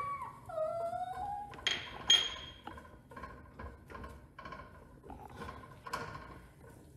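A small dog whining briefly near the start, followed by a sharp clink about two seconds in and then a run of soft knocks and taps.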